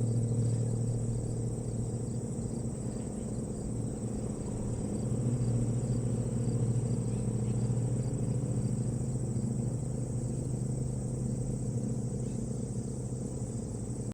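Outdoor ambience: insects chirping in a high, even trill over a steady low rumble.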